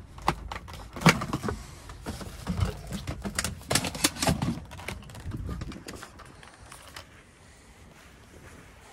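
Irregular clicks and knocks as a cordless stick vacuum is unclipped from its wall bracket and pulled out of a storage locker, dying away after about six seconds; the vacuum's motor is not running.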